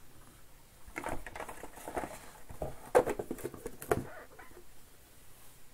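Cardboard trading-card box packaging and a foil pack being handled: a string of light clicks, taps and rustles over about three seconds, with one sharper click about three seconds in.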